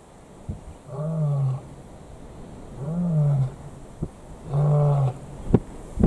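A lion calling: three low, drawn-out calls about two seconds apart, each rising and falling slightly in pitch, with a few sharp clicks between them.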